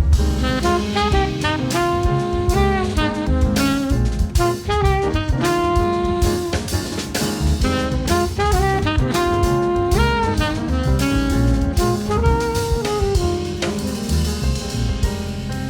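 Background jazz music: a saxophone-led melody over a drum kit beat.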